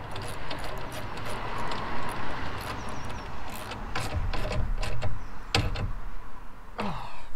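Irregular small metallic clicks and scrapes from a nut being turned and locked by hand onto a solar-panel mounting bolt on a metal roof rack, over a low steady outdoor rumble.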